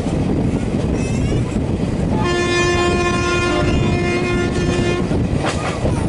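WAP-4 electric locomotive's horn sounding one long steady blast of about three seconds, starting a couple of seconds in, over the continuous rumble of the express train running.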